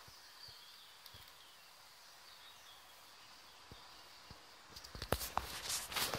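Faint, high bird twittering over steady outdoor background noise. Near the end comes a loud burst of irregular rustling and scuffling knocks.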